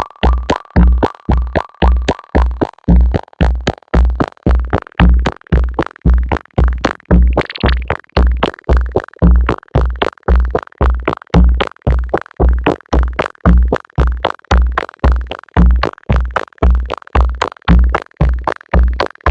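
Moog synthesizer playing electronic music: a steady, bass-heavy pulse at about two beats a second, each beat fading away. A held high tone drops out about three seconds in, and a brief rising sweep follows a few seconds later.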